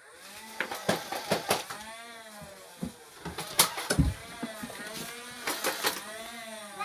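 Nerf blaster's motor whirring, its pitch rising and falling several times, with sharp clicks and knocks in between.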